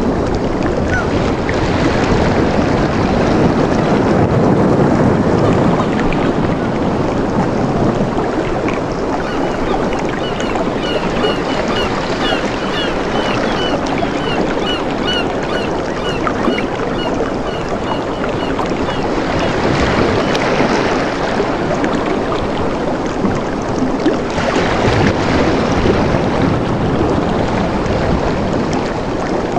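Rushing water, a steady full sound that swells a couple of times, with a bird giving a run of short high chirps, about two a second, in the middle.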